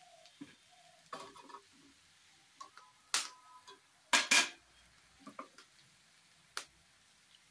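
Metal kitchenware clinking and clattering: a few scattered sharp knocks, with the loudest, a quick pair, about four seconds in.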